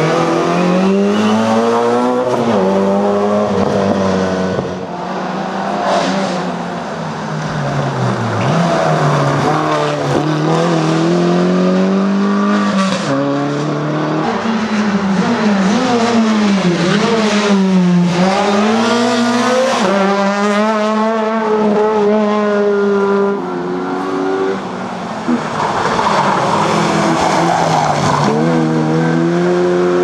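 Rally car engines, an Opel Astra and then a Citroën C2, revving hard through the gears as the cars brake and accelerate on the stage. The engine note repeatedly climbs and drops with each gear change, falling deep as a car slows and then rising again.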